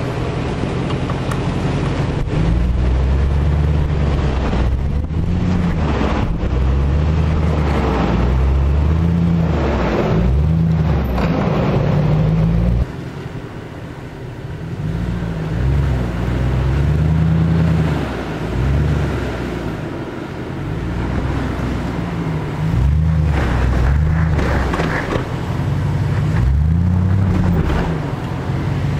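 Jeep Grand Cherokee WJ's engine revving up and down over and over under load as it climbs loose dirt and sand off-road, with wind on the microphone. The sound drops suddenly about halfway through, then the revving picks up again.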